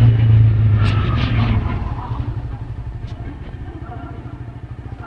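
A small engine running close by with a rapid low pulsing hum, loudest in the first two seconds, then fading as it moves away.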